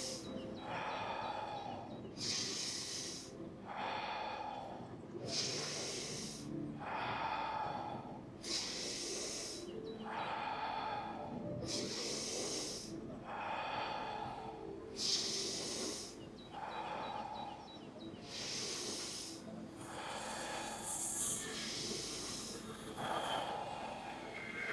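A person doing deep, forceful breathing cycles: a hissing breath in and a strong breath out in turn, about one full breath every three seconds, emptying the lungs hard on each exhale, as in the physiological fire breathing exercise.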